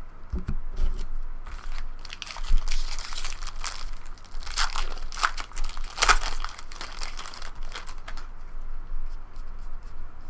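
Baseball card pack wrappers being torn open and crumpled, a run of crinkling and tearing that is busiest in the middle and thins out near the end.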